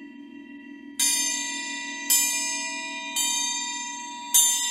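Crystal singing bowls: a low, slowly pulsing hum rings on, then four bright struck tones about a second apart, each ringing out and fading, the last the loudest.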